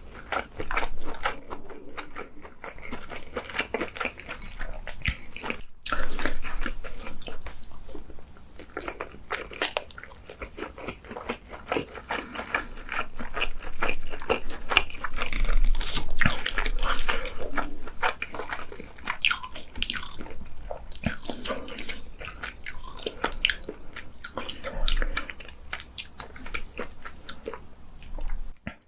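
Close-miked eating: a person biting and chewing food, with irregular wet smacks and crunches.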